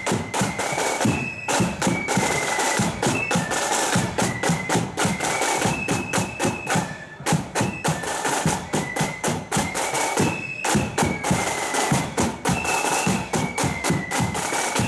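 Marching loyalist flute band playing: a tune on flutes over a busy beat of snare and bass drums.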